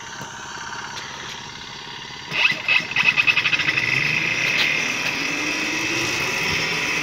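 Battery electric bike under way: road and wind noise, then from about two seconds in a high electric whine, pulsing briefly and then steady, with a lower tone rising slowly as the bike gathers speed.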